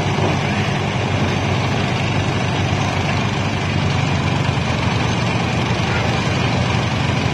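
Engine-driven rice thresher running steadily, a constant even drone, while bundles of rice stalks are held against its spinning drum to strip the grain.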